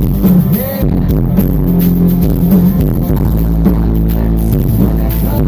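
Live rock band playing loudly through the PA: acoustic and electric guitars over a heavy bass line, with a steady beat.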